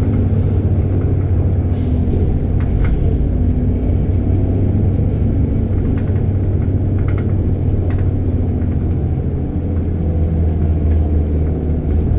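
City bus engine running steadily, a loud low drone, with a few faint rattles and ticks over it.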